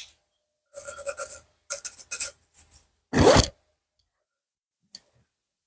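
A series of short rasping, scraping strokes, about four in all with the last the loudest, from hand work on a benchtop planer's knives, followed by a faint click.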